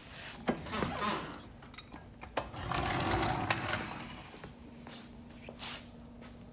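Metal clinks, knocks and rattles of a floor jack being handled and worked, with a short noisy rush about three seconds in.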